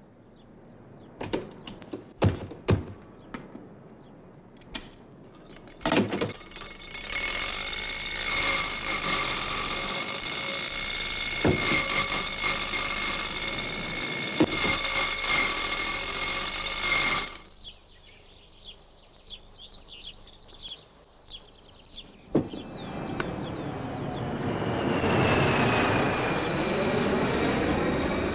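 Sound effects of an old open car: a few knocks and clicks, then the engine running loud and steady for about ten seconds before it cuts off sharply. After a quieter stretch with a few clicks, the engine pitch rises as it speeds up again.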